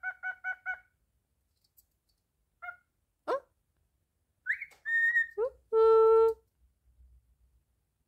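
Cockatiel chirping and whistling: a quick run of about five chirps at the start, a few short notes, then a longer steady held note about six seconds in, the loudest call.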